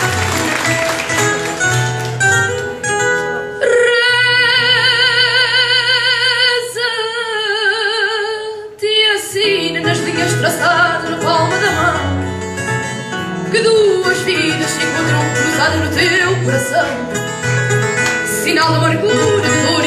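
A young singer's voice over a Portuguese guitar and a classical guitar, with applause dying away at the start. About four seconds in he holds one long note with a wide vibrato for some five seconds, then sings on in shorter phrases over the plucked accompaniment.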